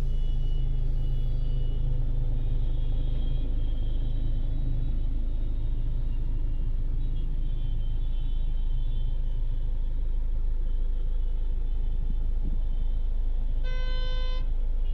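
Steady low rumble and hum inside a car cabin, with one short electronic beep near the end.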